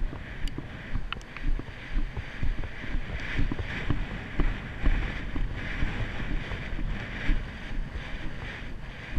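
Wind buffeting the rider's GoPro microphone over the regular low thud of a Haflinger's hooves on grass, about two strides a second, as the horse moves at a fast pace.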